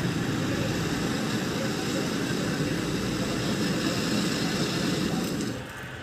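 Gas brazing torch flame running steadily as it heats a copper refrigerant pipe joint at a refrigerator compressor. The flame noise drops suddenly about five and a half seconds in.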